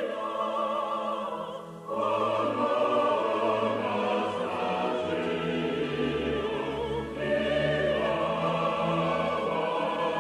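A Christmas hymn sung by classical voices with vibrato over instrumental accompaniment. There is a short break about two seconds in before the voices come back in.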